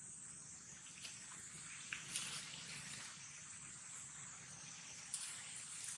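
Insects chirring steadily in a high, thin band, with a few faint clicks or taps.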